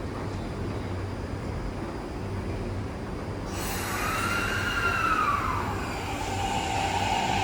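Electric train running with a steady low rumble. About halfway in, a high whine sets in, rising and then falling in pitch before settling into a steadier tone near the end.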